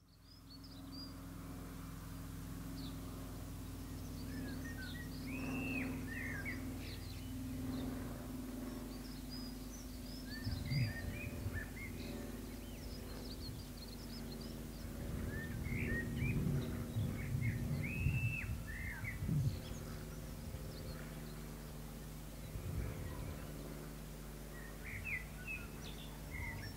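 Songbirds singing and chirping with short calls throughout, over a steady low hum, with irregular low rumbles now and then.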